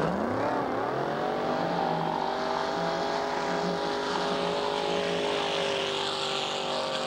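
Big-block Chevy V8 inboard of a flatbottom ski boat revving up sharply in the first second or so as the boat accelerates, then running steadily at high revs at speed.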